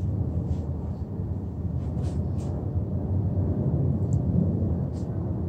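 Steady low rumble of background noise, with a few faint, sharp ticks scattered through it; no gunshot.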